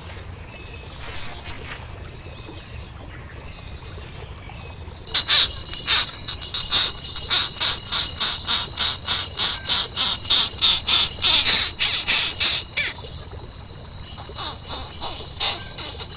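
A rapid, even run of sharp high-pitched animal calls, about three a second, starting about five seconds in and lasting some eight seconds, over a steady high insect-like hum; a few weaker calls follow near the end.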